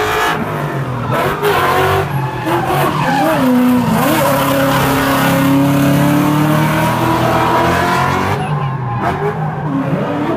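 Drift car sliding sideways under power: its engine revving up and down over and over, with tyres skidding and squealing.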